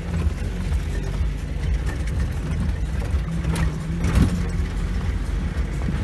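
UAZ off-road vehicle driving slowly along a dirt track, its engine running with a steady low rumble heard from inside the cab. Two short knocks come a little past three and a half and about four seconds in.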